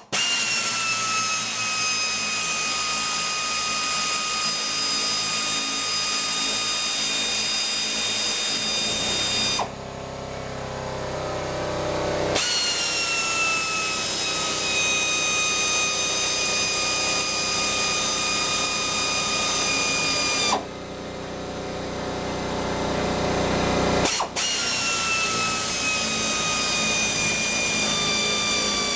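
Power tool spinning nuts down onto the heater's mounting bolts: three long runs of a whining hiss whose pitch sags slightly as it runs. It stops briefly about ten and twenty-one seconds in, leaving a quieter hum.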